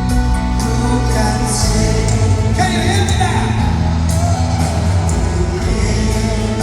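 Live concert music: a band playing a slow ballad with singing over sustained chords.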